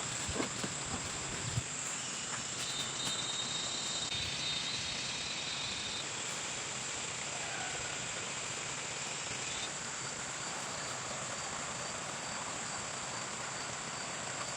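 Insects chirring steadily in a high, constant trill over an even background hiss, with a few soft knocks in the first two seconds.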